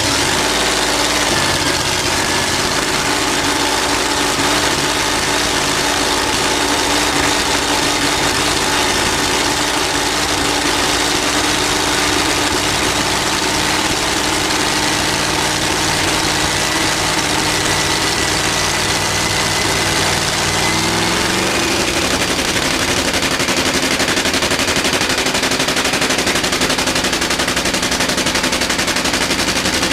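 Top Fuel Funny Car's supercharged nitromethane Hemi V8 idling steadily on its post-rebuild warm-up run, with the revs rising to a higher idle about two-thirds of the way through.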